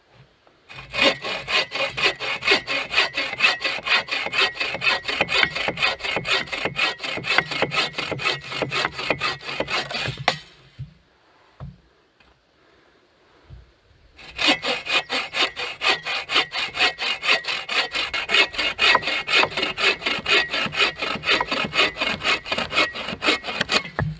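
Agawam Boreal 21 folding bow saw cutting through a dry driftwood log in steady back-and-forth strokes. Two bouts of sawing, with a pause of about four seconds in the middle.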